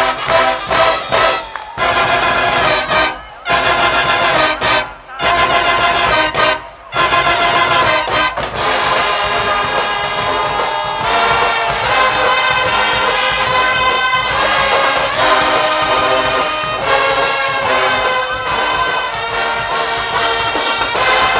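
Guggenmusik carnival brass band playing loudly, with trumpets and trombones. The band cuts off sharply four times in the first seven seconds, then plays on without a break.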